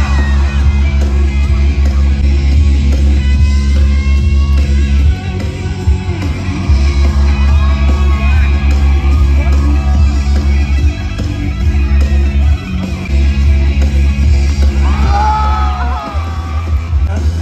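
Loud music with a singing voice over a heavy, steady bass, which drops out briefly a few times.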